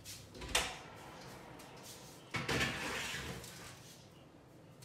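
Oven door and baking tray being handled: a single knock about half a second in, then a scraping slide of about a second, fading, as the tray goes back into the oven.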